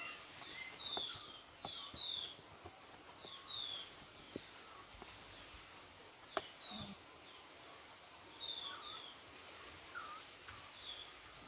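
Faint, repeated short falling chirps of small birds, often in pairs, over light clicks and taps of a coconut-shell ladle working flour in a pot; the sharpest tap comes about six seconds in.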